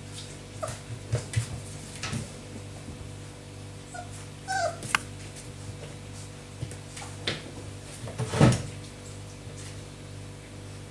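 Four-week-old puppy giving a few short high whimpers and yips, among small knocks and bumps. The loudest is a thump late on. A steady low hum runs underneath.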